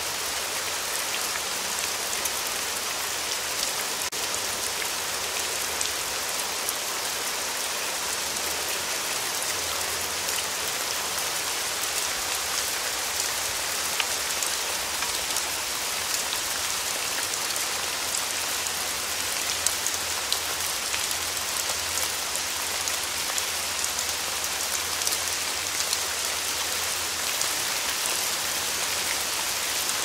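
Steady rain falling: an even hiss dotted with the fine ticks of single drops.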